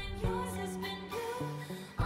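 A song with singing over a drum beat.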